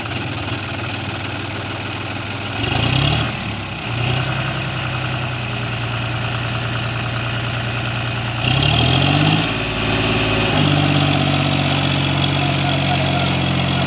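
John Deere tractor's diesel engine running under heavy load, revved up twice and then held at higher revs as the tractor, stuck in deep mud, strains to drive out.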